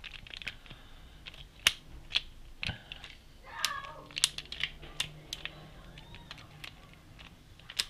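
Irregular sharp clicks of a multi-angle screwdriver being handled and adjusted, its ratchet and locking angle joint clicking as it is turned and set.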